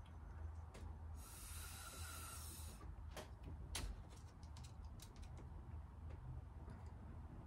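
A hard breath of air blown through a drinking straw, one hiss lasting about a second and a half, then a few sharp clicks and lighter taps as the straw and a small ink jar are handled.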